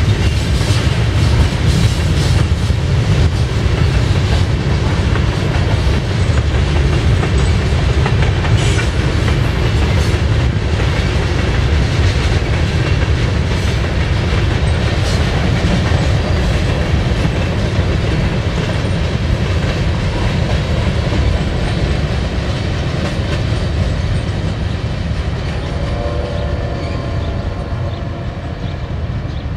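A freight train's cars rolling past close by: a steady loud rumble of steel wheels on rail, with clicking as the wheels cross rail joints.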